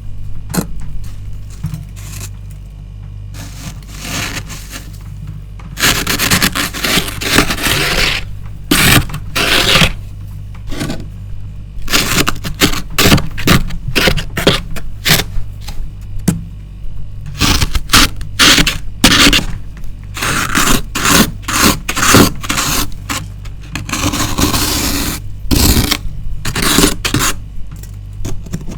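Thick frost being scraped off the inside wall of a freezer: repeated harsh, crunchy scraping strokes of irregular length, sparse at first and coming thick and fast from about six seconds in, over a steady low hum.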